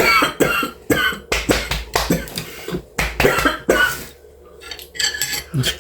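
A person in a hacking coughing fit: a rapid string of harsh coughs, then a short lull and a few more coughs near the end, the kind of coughing that comes from choking on food.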